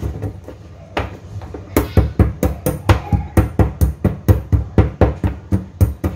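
Pestle pounding whole spices (cinnamon stick, peppercorns, cumin seeds, chili flakes) in a white mortar: a rapid, even run of sharp knocks about four a second, breaking off for about a second and a half near the start before resuming. The spices are being crushed toward a powder.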